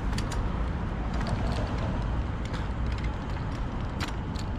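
Irregular metallic clicks and scrapes of a key being worked against a Kryptonite bike lock that it will not go into, over a steady low rumble of street traffic.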